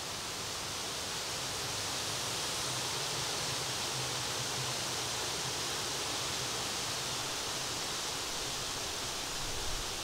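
Steady, even outdoor background hiss, unchanging throughout, with a brief low bump near the end.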